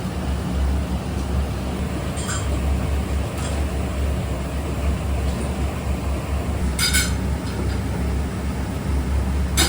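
A steady low hum of restaurant kitchen machinery, with a few short ringing clinks of tableware: faint ones about two and three seconds in, and louder ones about seven seconds in and at the very end.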